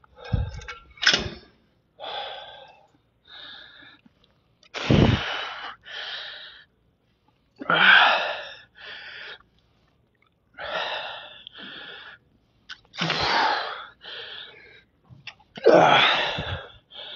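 A man's forceful breathing through a set of single-arm cable curls: a loud rushing breath followed by a softer one, repeating about every two and a half to three seconds in time with the reps. A couple of short knocks sound in the first second or so.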